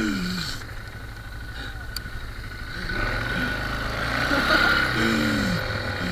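ATV engine running steadily with a low rumble, with a rushing noise that swells for a couple of seconds midway. Short vocal sounds come in near the start and later.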